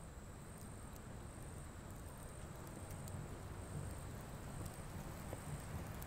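Faint night ambience: a steady high-pitched insect trill, such as crickets, over a low background rumble that slowly grows, with a few faint clicks.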